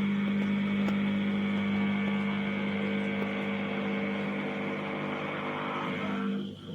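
Countertop mini dishwasher running: its pump hums steadily under a hiss of spraying water, then cuts off suddenly near the end.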